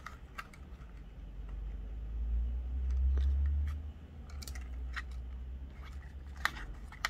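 Light plastic clicks and taps as a DJI Mini 2 drone's plastic body is handled and turned over while its top shell is pried at, over a low rumble of hand-handling noise that swells in the middle and drops off about four seconds in.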